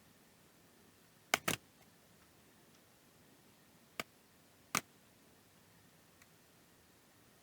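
Four short, sharp clicks from small parts or tools being handled on a workbench: a quick pair about a second and a half in, then single clicks near four seconds and near five seconds.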